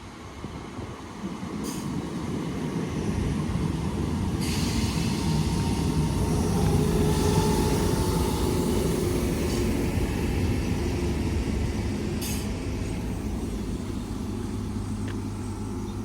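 Class 319 electric multiple unit at the platform, growing louder over the first several seconds, then standing with a steady low hum from its equipment. There is a brief hiss twice, about two seconds in and about twelve seconds in.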